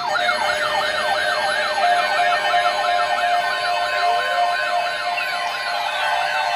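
Electronic siren wail, a rapid up-and-down yelp repeating about three times a second over steady held tones, with slower rising and falling sweeps layered in from about four seconds in.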